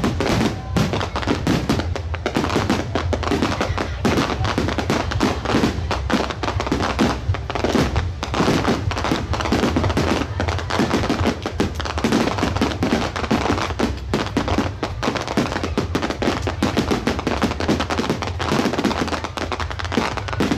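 Dense barrage of aerial firework shells bursting in rapid succession, many booms and cracks overlapping without a break.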